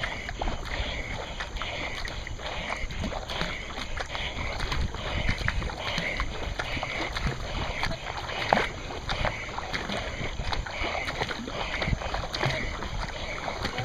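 Kayak paddle strokes splashing in a steady rhythm, a little more than one a second, over water washing along the hull, with one louder splash past the middle.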